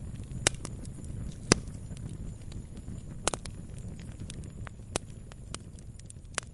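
Wood campfire crackling: irregular sharp pops and snaps, a handful of them much louder, over a steady low rumble.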